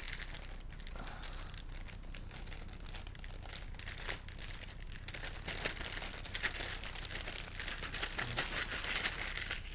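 Plastic wrapping crinkling and rustling as a model kit's hull part is unwrapped from it, with a steady stream of small crackles that grows busier in the second half.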